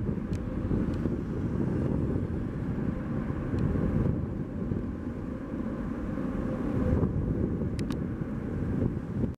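Twin-engine widebody jet airliner's engines heard as a steady low rumble across the airfield, mixed with wind on the microphone.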